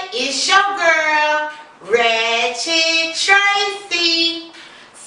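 A high voice singing long held notes, unaccompanied, in a few drawn-out phrases with short breaks between them.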